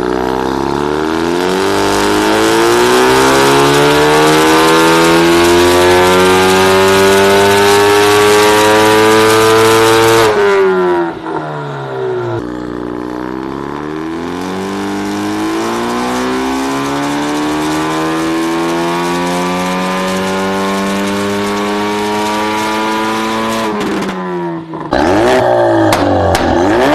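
Ford Focus RS engine with a catless straight-through valvetronic exhaust, pulling under load: the pitch climbs steadily for about ten seconds, then drops off sharply. A second, quieter pull climbs more slowly for about eleven seconds. Near the end it comes back loud with a falling pitch.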